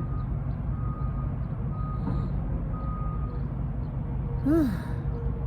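A vehicle's reversing alarm beeping about once a second, four beeps, over a steady low rumble. Near the end a person's short hum rises and falls in pitch.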